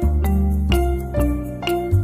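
Background music: a light tune of pitched notes over low bass notes, a new note about every half second.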